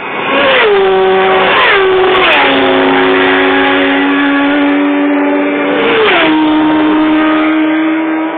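Racing motorcycles passing at high speed on the TT road course, the engine note loud and dropping sharply in pitch four times as bikes go by.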